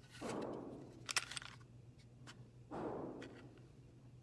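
Glock 43X pistol being handled at a table: a quick cluster of sharp clicks about a second in and a few single clicks later, between two softer dull sounds that die away.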